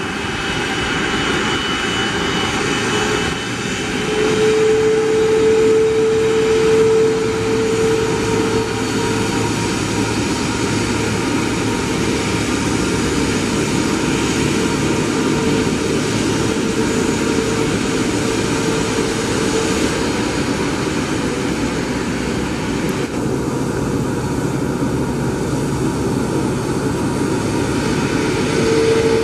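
Rolls-Royce Trent 700 turbofans of an Airbus A330 freighter running at taxi power: a steady jet engine noise with a humming tone that swells about four seconds in and again near the end.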